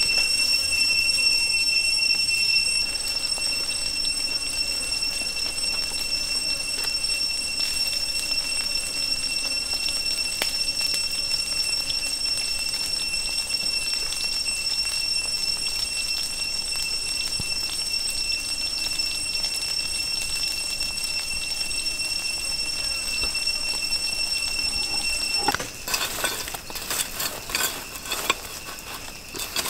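Insects droning steadily with a high-pitched whine, cut off abruptly near the end. After the cut comes a run of sharp clattering and knocking as a machete blade stirs burning charcoal.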